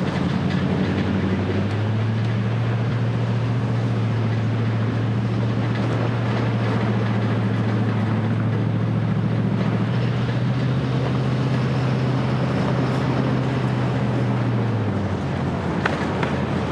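Vehicle engine and tyre noise heard from inside the cabin while driving: a steady engine hum that rises in pitch about two seconds in and drops back near the end, with a single sharp click just before the end.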